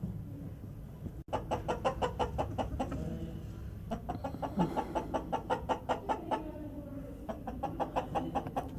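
Domestic hen cackling in three runs of rapid clucks, about six a second: the egg song hens make around laying.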